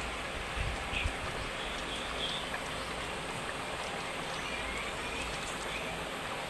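Steady sizzling of fish frying in hot oil in a pan, with a couple of low knocks about a second in.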